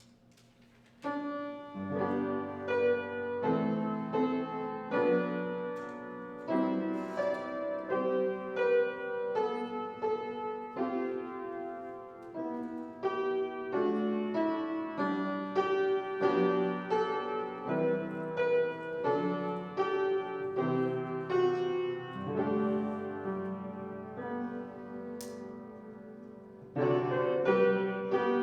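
Solo piano playing a slow prelude of sustained chords, starting about a second in, softening toward the end and then swelling again with louder chords near the end.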